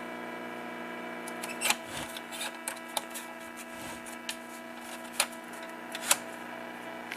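1952 Buick Sonomatic tube car radio giving a steady buzzing hum through its speaker, with sharp static crackles about once a second and no programme coming through.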